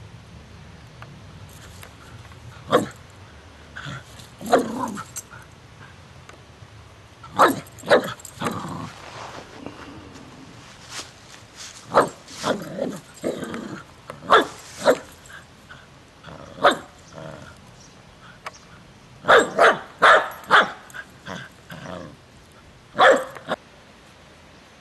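White poodle-terrier dog barking in short, sharp barks that come in irregular clusters, with the densest run about twenty seconds in. It is barking at a dandelion it takes for an intruder.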